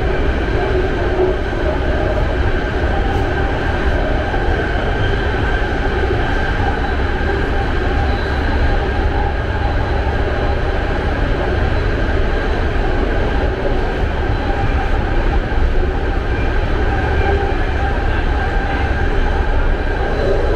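BART train running: a steady rumble of wheels on rail with a steady high-pitched whine over it.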